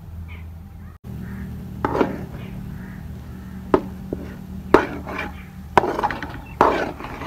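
Metal spatula scraping and knocking against a steel pot as thick, crumbly egg halwa is stirred and turned, with about five sharp strokes at irregular intervals over a steady low hum.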